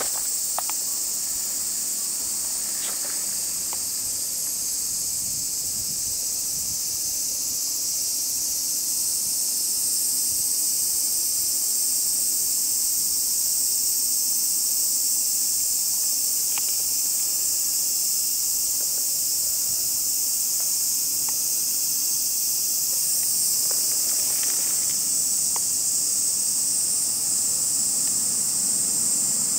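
A steady, high-pitched chorus of insects shrilling without a break, with a few faint clicks.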